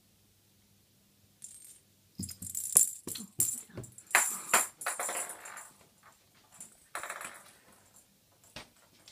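Small metal jingle bell jingling in a run of quick, uneven shakes, starting about a second and a half in, loudest in the middle and thinning out near the end.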